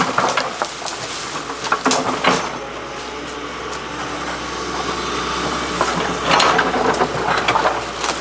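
Excavator engine running steadily, with scattered clanks and knocks and a louder stretch of rattling near the end.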